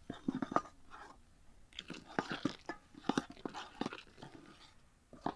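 Metal spoon stirring thick flour batter in an enamel bowl, with irregular scrapes and clicks of the spoon against the bowl.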